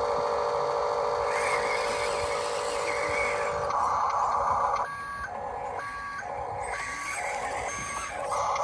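Electronic sound effects from a Huina RC construction toy's speaker: a steady mechanical hum, then from about five seconds in a two-tone beep about once a second, like a reversing alarm.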